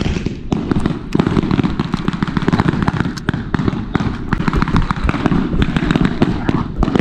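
Heavy rumble and buffeting on a body-worn camera's microphone as its wearer runs across grass, with many sharp cracks and clicks through it, likely blank gunfire from reenactors' weapons.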